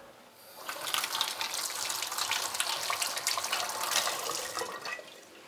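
Kitchen tap running for about four seconds, water splashing into a sink. It starts about half a second in and fades out near the end.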